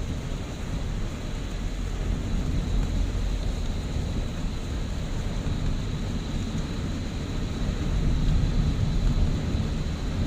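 Steady rumble of a car driving on a highway, its engine and tyre noise heard from inside the cabin, with a faint high steady whine.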